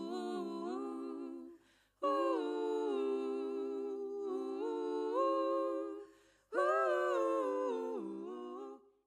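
Background music of wordless humming vocals in layered harmony, held and sliding notes in three phrases with brief pauses between them.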